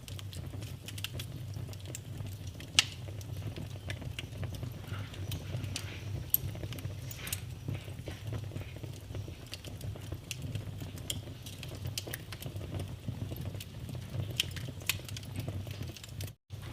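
Wood fire burning in a fireplace, crackling: a steady low rumble of the flames under scattered sharp pops, the loudest about three seconds in. The sound drops out briefly near the end.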